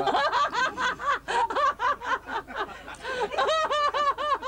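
High-pitched laughter, a quick, rhythmic string of ha-ha-ha pulses, loud throughout.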